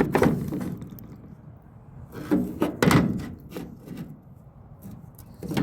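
A few clunks and knocks of a replacement engine mount being handled and offered up against the engine, with a cluster of them about two and a half to three seconds in and another near the end.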